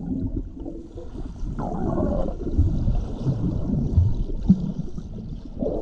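Sea water heard from underwater: muffled sloshing and gurgling with irregular soft low thumps as a swimmer in a wetsuit strokes past in front crawl.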